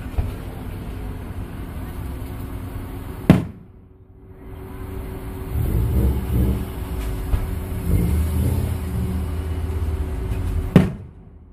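Two loud, sharp firework bursts about seven and a half seconds apart, one about three seconds in and one near the end, over a steady low rumble.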